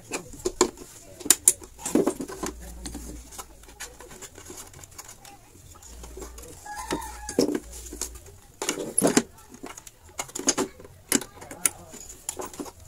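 Irregular clicks and knocks from a television's circuit board and its wiring being handled and shifted on a bench. A chicken clucks in the background about seven seconds in.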